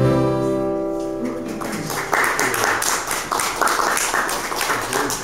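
An acoustic string band's final chord (guitar, upright bass, ukulele, fiddle and harmonica) rings out and fades, then audience applause starts about two seconds in.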